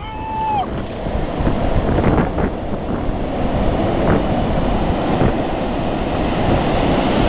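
Surf washing on the shore, with wind buffeting the microphone. A short pitched call is heard right at the start.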